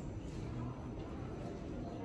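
Steady low rumble of a Fujitec elevator car travelling down its shaft behind closed landing doors as it approaches the floor.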